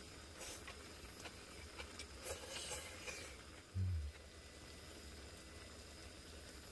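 Chopsticks rustling through bean sprouts and meat in a cast-iron skillet of broth on a portable butane stove, a few short soft rustles over a low steady hum, with a dull thump a little under four seconds in.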